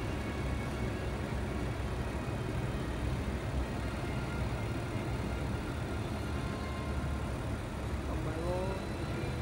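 Steady low rumble and hum of background noise on an open-air railway platform, with no distinct events.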